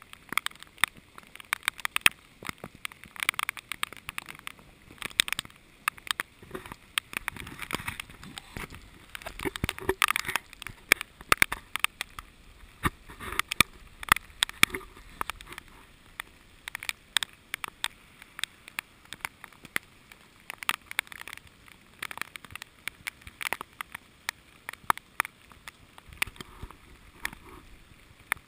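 Heavy rain with raindrops hitting the camera directly, heard as irregular sharp ticks and taps over a hiss of rain falling on the wet street.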